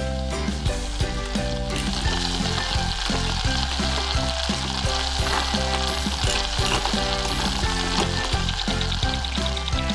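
Steady sizzling like food frying in a pan, laid over light background music with changing notes.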